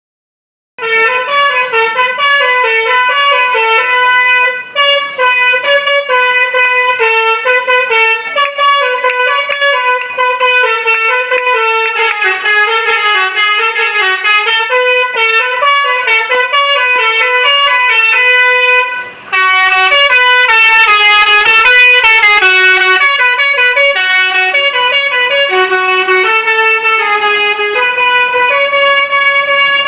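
Tour bus's Basuri telolet musical air horn playing a melody, note after note in quick steps. It starts about a second in and breaks off briefly about two-thirds of the way through before playing on.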